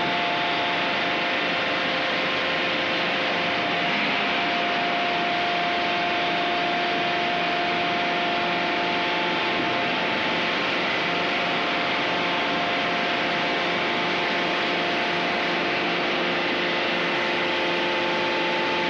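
Steady machinery noise of a forging shop hall: an even hiss with several steady humming tones running underneath, and no hammer blows.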